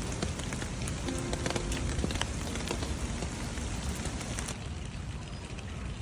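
Steady rain with many individual drops ticking on a surface, heavy low rumble underneath; the high hiss of the rain thins about four and a half seconds in. A few soft held music notes sound briefly about a second in.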